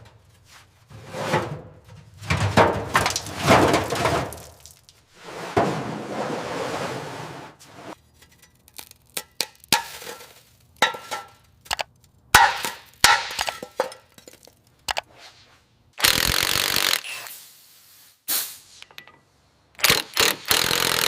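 Workshop tool sounds: several noisy bursts of a second or more, with scattered sharp knocks and clicks between them.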